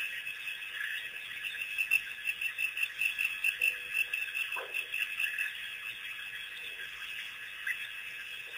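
A steady chorus of frogs calling at the waterhole, with a rapid pulsing beat of about four to five calls a second through the middle. About halfway through, an African wild dog gives one short falling yelp.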